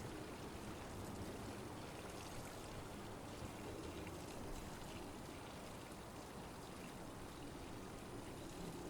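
Faint, steady rushing of flowing water, like a woodland stream.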